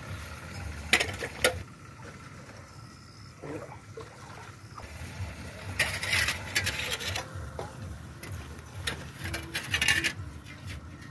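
Hands scraping and scooping loose dry soil and small stones, with a couple of sharp clicks early on and short rustling scrapes later.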